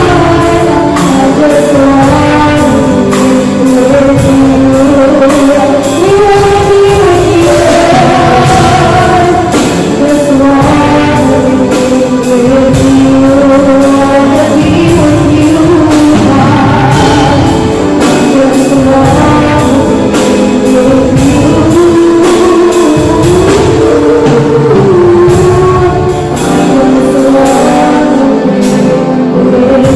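Live worship song: a woman singing into a microphone, accompanied by electronic keyboard and a drum kit.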